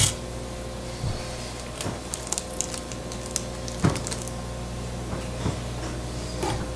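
Light plastic clicks and knocks from an upturned laptop's case being handled on a table: a sharp click at the start, a patter of small ticks about two to three seconds in, and single knocks near four and five and a half seconds, over a steady low hum.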